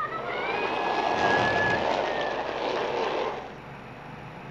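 A voice making a hissing, whooshing sound effect with a thin whistle that rises in pitch and then holds, for about three seconds before dropping away.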